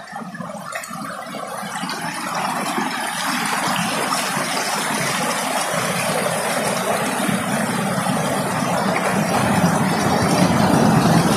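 Rocky mountain stream rushing over boulders, a steady roar of water that grows louder over the first few seconds and then holds.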